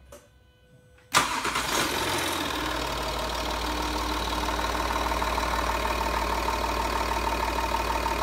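A Ford 2.7-litre V6 common-rail turbo diesel starts suddenly about a second in and settles into a steady idle, with engine-flush additive mixed into its oil.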